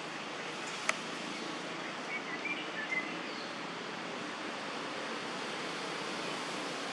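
Steady outdoor ambient hiss, with a single sharp click about a second in and a few short, faint high chirps a little later.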